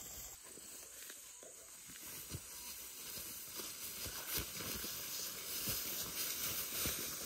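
Footsteps swishing and rustling through tall dry grass and brush, with scattered soft knocks, getting a little louder over the last few seconds.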